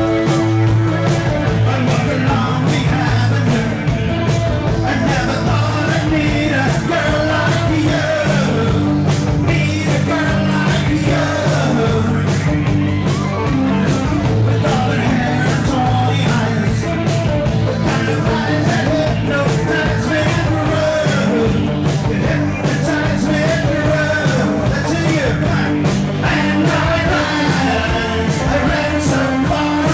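Rock song with a lead vocal over drums, bass and guitar, a steady driving beat throughout.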